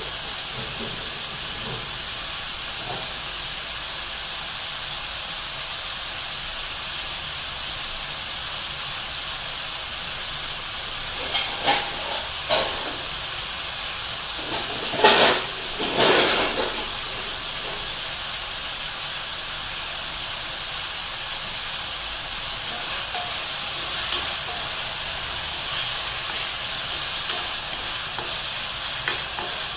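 Beef slices with garlic and ginger sizzling steadily in a nonstick wok, with a few short louder pops around the middle. Near the end a wooden spatula stirs the meat.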